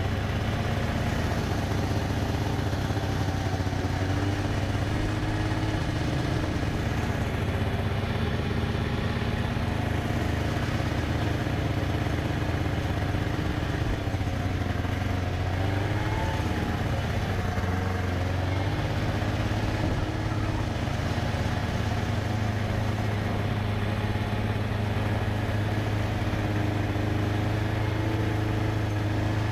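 An engine running steadily at constant speed, with a deep low hum and a brief wavering in pitch about halfway through.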